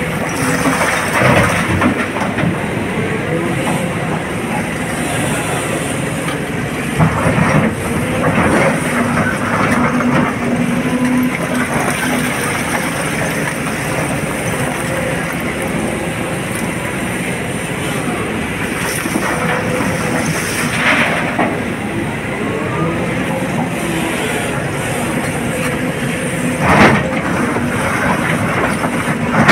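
SANY hydraulic excavator's diesel engine running under load with a steady hydraulic whine as the bucket digs and handles quarry rock. Rocks clatter and the bucket clunks several times, the loudest knock near the end.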